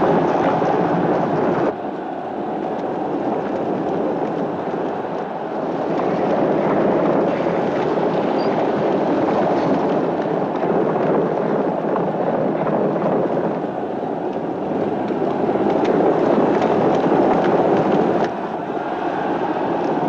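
Chariot race sound: galloping horse teams and rumbling chariot wheels in a dense, steady din. It drops abruptly about two seconds in and again near the end.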